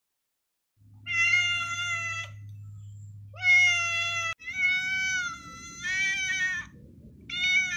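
Calico cat meowing repeatedly, about five long, loud meows in a row, starting about a second in.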